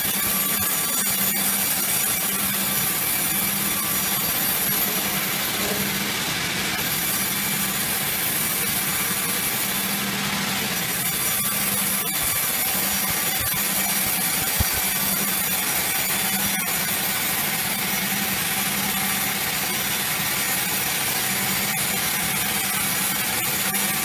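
Sawmill band saw ripping lengthwise through a log on the carriage: a steady, loud hiss of the blade in the wood, with a low hum that comes and goes underneath. One sharp tick about two-thirds of the way through.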